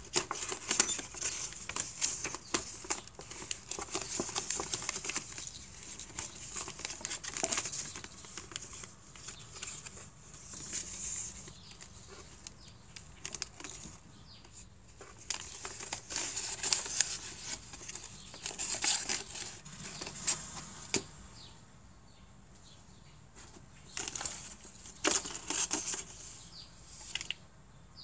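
Tissue paper and a cardboard box rustling and crinkling in irregular bursts with quieter gaps, as a cat noses and paws through the box.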